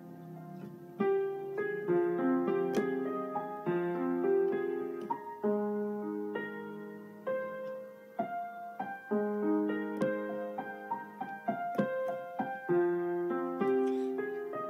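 Piano music: a melody over held chords.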